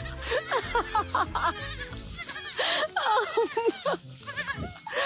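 An animal's short, pitched calls in quick runs of several a second, over background music with a steady low beat. The calls break off for a moment a little before the end.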